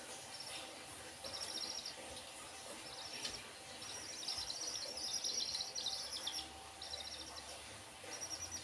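Young chicks peeping in several short bursts of rapid, high chirps, the longest lasting about two seconds in the middle.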